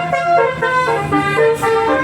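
Indonesian bus's 'telolet basuri' musical horn playing a quick tune of short, changing notes, over a low steady hum.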